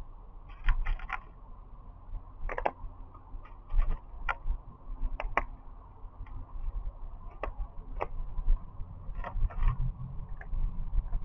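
A cat eating from a plastic dish: irregular crunches and clicks of chewing and of food and teeth against the dish, a few every second or two.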